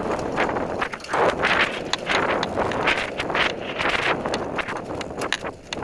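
Mountain bike riding fast down a dirt forest trail: tyres rumbling over dirt and roots, with frequent rattling clicks from the bike and wind buffeting the camera microphone.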